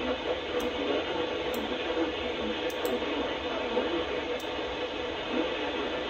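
NOAA weather radio receiver hissing with static on a weak signal, with a few faint clicks.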